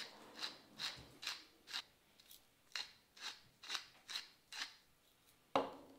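Salt and pepper being ground onto steaks with a hand grinder, turned in short regular strokes about two a second with a brief pause partway. A louder knock comes near the end.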